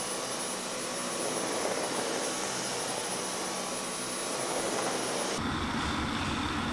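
Stick vacuum cleaner running steadily over a woven rug, a motor noise with a thin high whine. About five seconds in it gives way to a glass electric kettle rumbling at a rolling boil.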